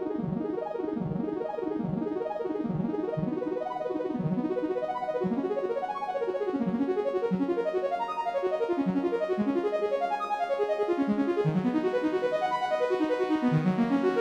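Instrumental background music: a keyboard melody of quick, evenly repeated piano-like notes, growing a little louder near the end.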